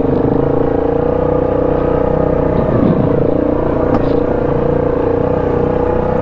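ATV engine running steadily at an even pace while riding a rutted trail.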